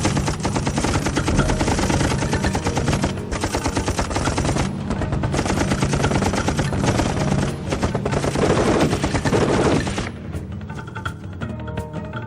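Heavy machine-gun fire in rapid, sustained bursts, with music underneath. About ten seconds in the firing thins to scattered shots over the music.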